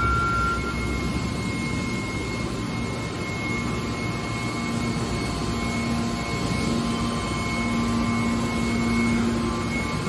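Hydraulic scrap metal baler's power unit running, a steady drone of electric motor and hydraulic pump with a low hum that grows stronger about halfway through.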